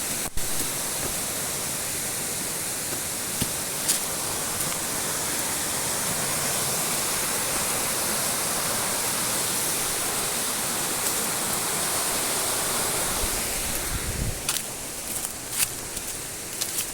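Large waterfall rushing steadily, an even hiss of falling water. A few short clicks and a low thump come near the end.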